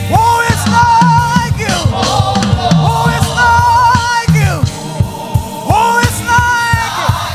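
Live gospel band music: a drum kit and bass line under a lead melody that slides up into wavering held notes, with no words sung.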